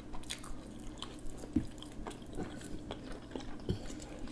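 Close-miked chewing of soft food (potato casserole), with many small wet mouth clicks scattered irregularly throughout.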